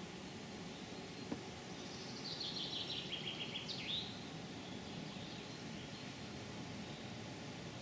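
A songbird singing one short phrase of rapid high notes that step downward and end in a quick rising-and-falling flourish, over steady outdoor background noise.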